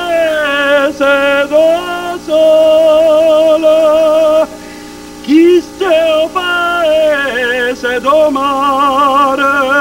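A man singing a slow, melodic song, holding long notes with a wavering vibrato and sliding between pitches, with a couple of short breaths or pauses along the way.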